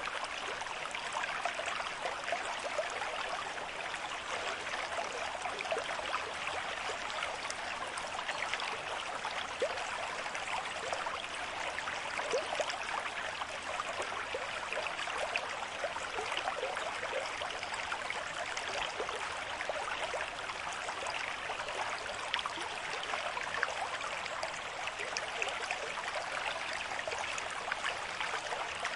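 River stream flowing at a moderate rate: a steady rush of running water, busy with many small splashes and gurgles.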